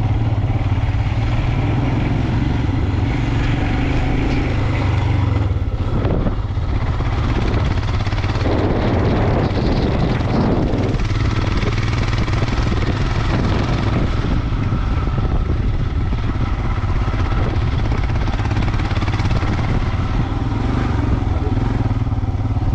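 Motorcycle engine running steadily under way on a rough, unpaved mountain track. A rushing noise swells for a couple of seconds about nine seconds in.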